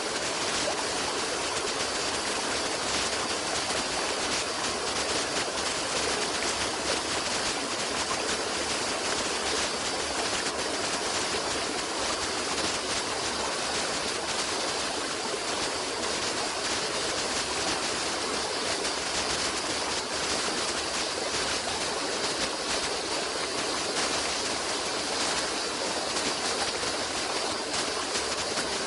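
Stream of water running steadily, an even rush with no breaks.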